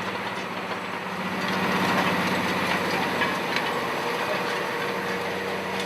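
Tractor engine running steadily, growing a little louder about two seconds in.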